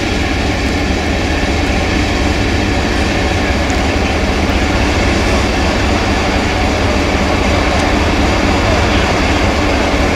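Hastings diesel-electric multiple unit's English Electric four-cylinder diesel engine idling steadily, with a deep, continuous low rumble.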